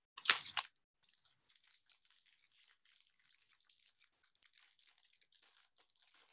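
Baseball trading cards being handled: a short, loud rustling crunch just after the start, then faint crackling and sliding of cards for the rest.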